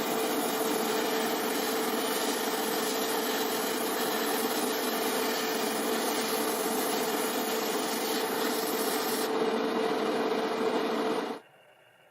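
A small power tool running steadily on the model car's parts, with a constant hum under a rasping hiss. It cuts off suddenly near the end.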